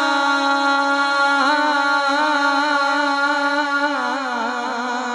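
A man singing a Punjabi naat, holding one long, ornamented note through a microphone, with small turns in pitch about one and a half and four seconds in.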